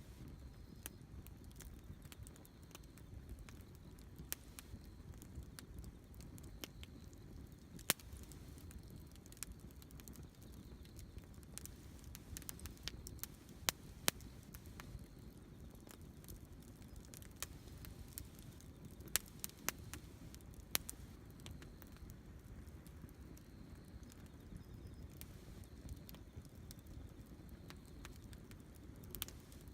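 Wood campfire crackling: scattered sharp pops and snaps at irregular intervals over the low, steady rumble of the burning fire.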